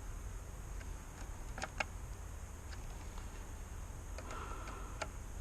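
Faint scattered clicks and light taps of hands and tools working at an electrical fuse disconnect, over a steady low rumble.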